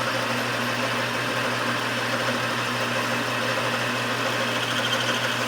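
Engine lathe running steadily, its motor and spindle giving an even hum with a constant low tone.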